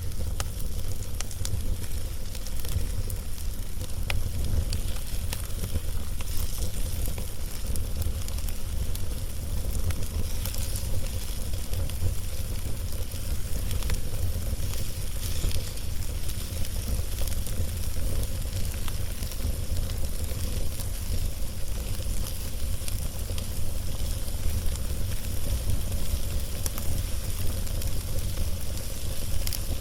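Log fire burning: a steady sizzling hiss with scattered sharp crackles and pops, over a constant low rumble.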